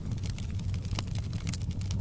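Wood fire in a fireplace crackling: scattered sharp pops and snaps, a louder one about halfway through and several close together near the end, over a steady low rumble of the flames.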